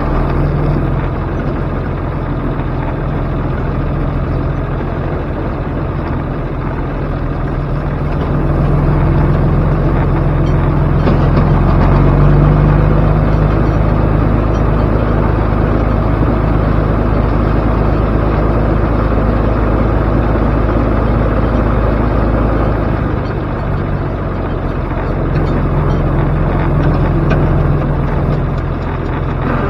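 Vehicle engine running steadily at an even low pitch, swelling a little louder about a third of the way in and easing back off about three-quarters of the way through.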